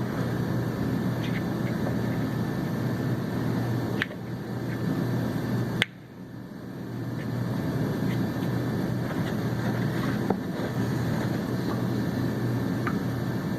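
Steady low machine hum, with a few light clicks and one sharper tap about six seconds in, as engine parts are handled.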